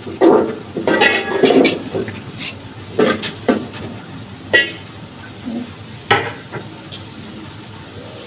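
Metal spoon clinking and scraping against a large metal cooking pot as rice is stirred: a quick run of clinks in the first two seconds, then single sharp clinks every second or so.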